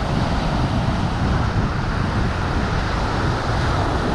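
Steady ocean surf washing in over rocks, with wind buffeting the microphone in a heavy low rumble.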